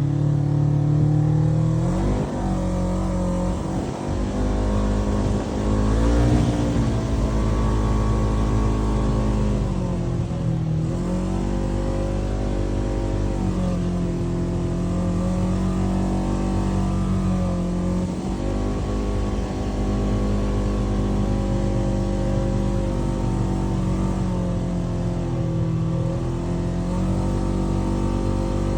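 Polaris RZR 900 UTV's twin-cylinder engine under load while driving over sand dunes, revving up and easing off again and again, its pitch rising and falling every few seconds.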